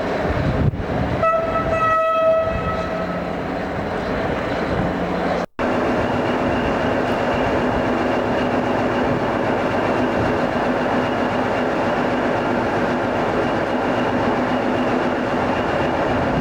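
Train horn sounding one steady note for about two seconds over the rumble of a train. After a brief cut, a train's steady running noise continues.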